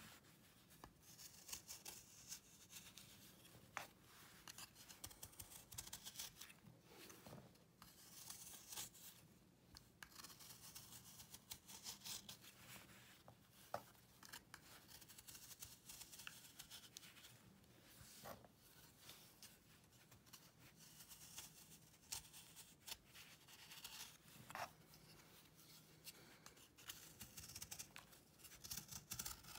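Knife blade shaving a dried cake of cleaning paste: quiet, repeated dry scrapes as chalky curls peel off and crumble onto the pile, with a few sharp ticks.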